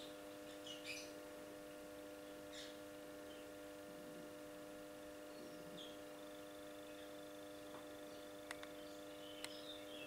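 Young cockatiels giving a few faint, short chirps, scattered and sparse, over a steady electrical hum; two sharp clicks near the end.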